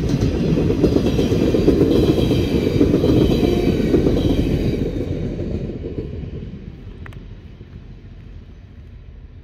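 Pesa 730ML diesel multiple unit passing on the track, a dense rumble of wheels on rails with faint high tones above it. The sound fades steadily over the last few seconds as the train moves away.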